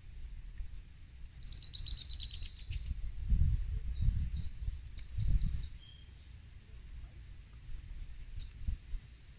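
Birds calling: a high trill of quick repeated notes lasting about a second and a half, then a few short chirps. Low rumbling gusts of wind on the microphone come and go in the middle and are louder than the birds.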